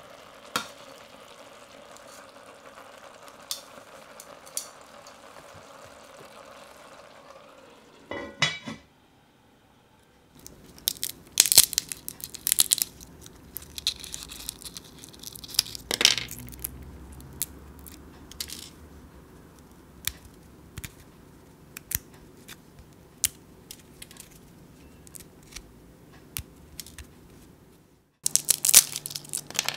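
Steady sizzle from a pot as seared chicken pieces are laid in with metal tongs, with a clatter about eight seconds in. Then, after a short pause, fingers crack and peel the brittle shells off roasted chestnuts: dense, crisp crackles and snaps to the end.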